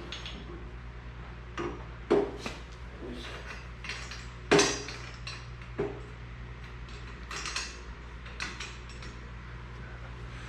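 Welded metal exhaust pipe being worked into place for a test fit, knocking and clinking against the frame in scattered irregular strikes. The loudest knocks come about two seconds in and about four and a half seconds in.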